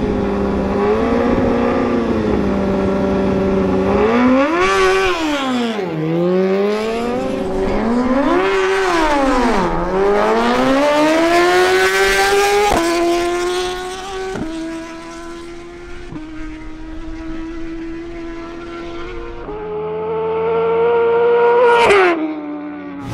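Suzuki GSX-R1000's inline-four engine held at high revs, then accelerating hard down the drag strip, its pitch climbing in each gear and dropping sharply at each upshift. Near the end a last climb cuts off suddenly.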